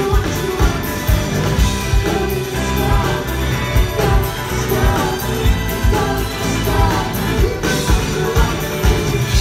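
Live pop-rock band performing a song: singing over electric guitars, bass, keyboards and a steady drum beat.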